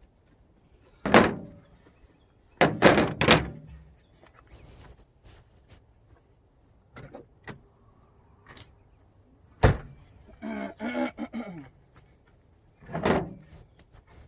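A series of hard thunks and knocks at uneven intervals: one about a second in, three in quick succession soon after, lighter knocks, then a sharp one. Next comes a pitched squeal lasting over a second, and a last thunk near the end.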